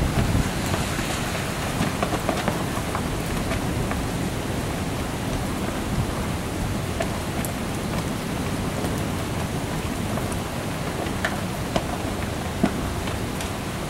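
Heavy thunderstorm rain falling, a steady hiss dotted with many small drop ticks, with a couple of sharper taps near the end.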